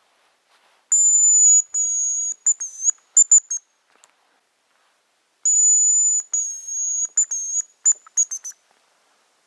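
Hazel grouse decoy whistle blown twice, imitating the male's song: each time a long, very high, thin whistle followed by a string of short broken notes.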